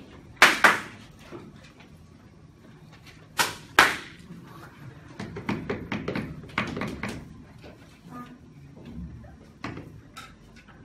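Two loud double knocks, like something struck or slammed twice in quick succession, followed by a few seconds of softer knocking and rattling and a few light clicks near the end.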